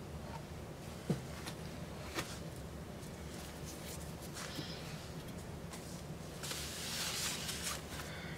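Quiet room hum with two sharp clicks, about one and two seconds in, and a brief rustle near the end.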